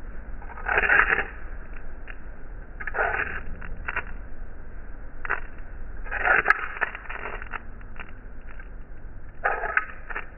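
Flint and steel being struck several times: five or six short scraping strikes a second or more apart, with small sharp clicks in between.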